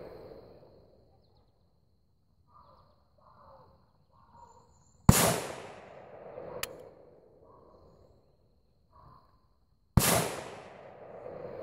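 Two rifle shots from a Ruger Mini-14 semi-automatic firing cast-bullet handloads, about five seconds apart, each trailing off in a long echo. A short sharp tick comes a second and a half after the first shot.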